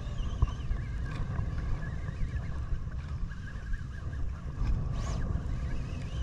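Small fishing boat's engine running steadily, with wind rumbling on the microphone.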